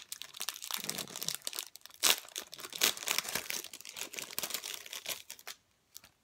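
Crinkly packaging crackling and rustling as hands unwrap a piece of jewelry, with two sharper crackles about two and three seconds in; it stops shortly before the end.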